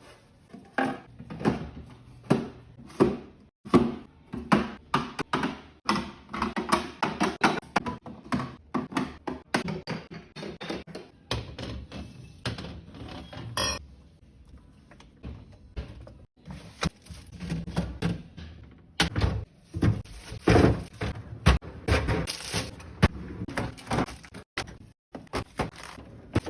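Containers, jars and dishes being set down and moved about during a fridge clean-out: a run of short thunks and clinks. It is busiest in the first ten seconds, quieter for a few seconds, then picks up again.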